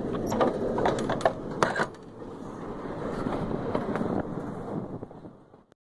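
A quick run of sharp metallic clicks and knocks in the first two seconds, from a hand working the grab iron and fittings on a locomotive's body. Then a steady low outdoor noise that fades out near the end.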